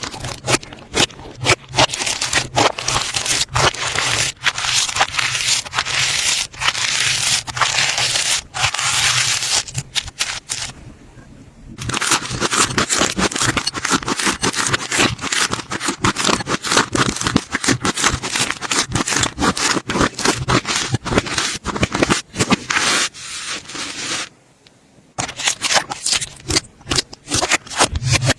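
Slime being squished and stretched by hand: a dense, continuous run of sticky crackling pops and scraping, broken twice by brief pauses, about 11 and 24 seconds in.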